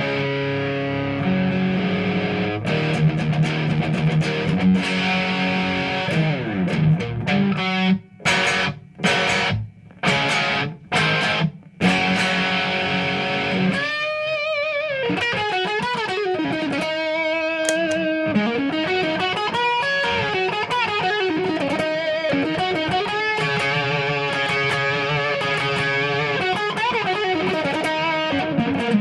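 Electric guitar, an Epiphone Les Paul through a Boss DD-5 delay into a Marshall JCM2000 TSL 60 tube amp, playing distorted rock. It opens with sustained chords, breaks into a series of short chord stabs with silent gaps, then goes into a lead line with string bends and vibrato.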